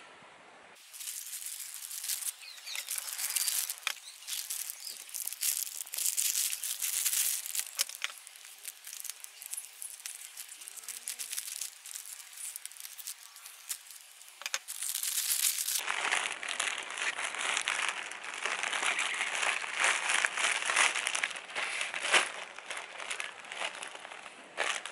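Plastic courier mailer being opened by hand and its plastic wrapping crinkled: a long stretch of crackling and rustling. From about sixteen seconds in it sounds fuller and lower.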